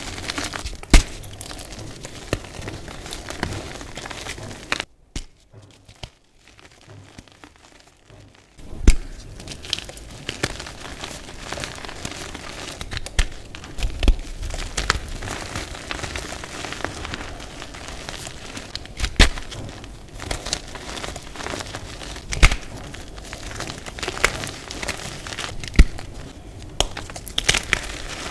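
Hands crushing and crumbling blocks of reformed gym chalk: dry crunching and crackling with sharp snaps as chunks break, and softer powdery crumbling between. There is a brief lull about five seconds in, then the crunching resumes with a loud snap.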